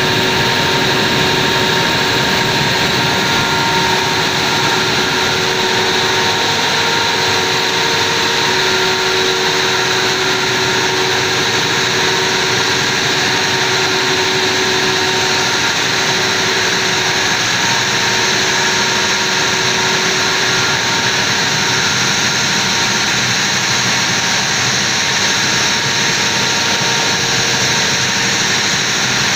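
Diesel generator set with a 1500 kVA Stamford alternator running steadily at its rated 1500 rpm: a loud, even engine noise with several steady whining tones over it.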